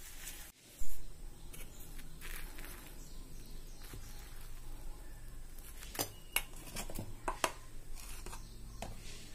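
Moringa leaves being mixed with beaten egg in an aluminium pot, a steel spoon clinking and scraping against the pot among soft wet rustling. A loud knock comes just under a second in, and the clinks bunch together around six to seven seconds in.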